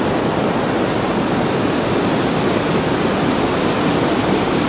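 Steady rushing roar of a waterfall tumbling over basalt rock close by.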